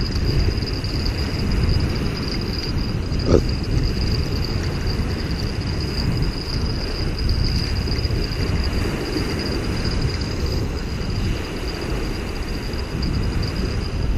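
Wind rumbling and buffeting on the microphone, with a faint steady high-pitched tone over it and one brief short sound about three seconds in.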